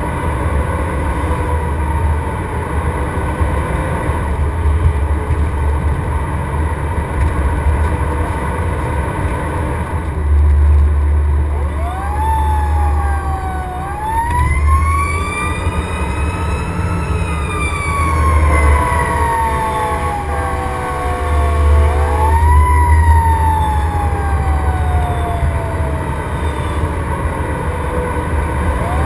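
Fire engine siren that rises quickly in pitch and then falls slowly, winding up several times, over the truck's steady low engine rumble.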